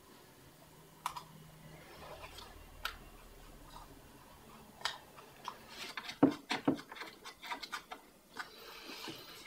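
Handling clicks and light knocks from a tablet and its clamp-style holder, with a few single clicks, then a quick run of plastic clicks and taps about six seconds in as the tablet is fitted into the holder's clamp.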